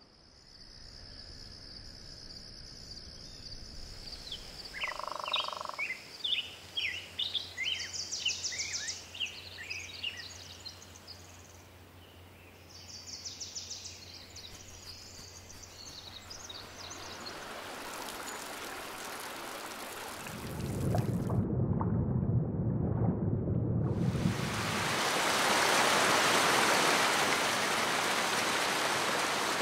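Forest ambience with birds chirping in quick runs of short, falling calls. After a brief low rumble, it gives way to the steady rush of a waterfall, which is the loudest sound and fills the last several seconds.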